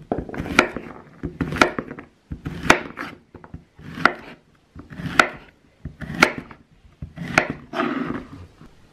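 Kitchen knife slicing through a raw courgette (zucchini) and striking a wooden cutting board, one cut about every second, each a short rasp through the flesh ending in a knock on the board.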